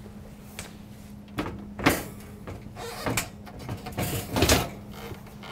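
Wall oven door being lifted off its hinges: a series of metallic clicks and clunks from the hinge arms and door, the loudest about two seconds in, and a longer scrape about four seconds in. A steady low hum runs underneath.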